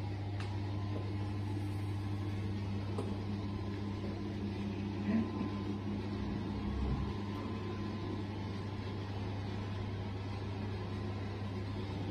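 Steady low mechanical hum, with a brief knock about five seconds in and a soft low thump near seven seconds.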